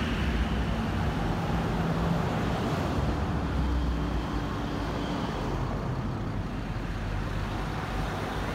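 Motor vehicle engines running with steady road traffic noise: a low, even rumble with no sudden events.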